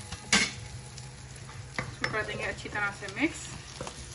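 Wooden spatula stirring fried pakoras into thick kadhi in a metal pot, knocking against the pot. The loudest knock comes about a third of a second in, with a few more midway.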